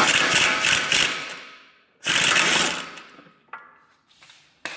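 Impact wrench hammering a 16 mm socket to loosen the tie rod end nut. It gives two bursts, one at the start and one about two seconds in, each trailing off, then a couple of short clicks near the end.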